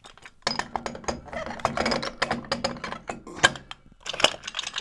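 Steel transmission parts of a Ford 10R140 10-speed geartrain clicking and rattling as a clutch drum and planetary assembly is lowered and worked down onto the stack, its splines and clutch teeth engaging. A rapid run of metallic clicks lasts about three seconds, with one sharper click near its end and a few more clicks just before the end.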